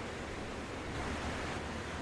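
Small sea waves breaking and washing up a sandy beach: a steady rushing hiss of surf that swells a little about halfway through.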